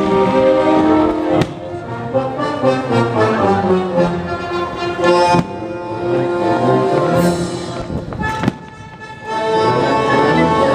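Symphony orchestra with brass playing, with three sharp firework bangs cutting through the music.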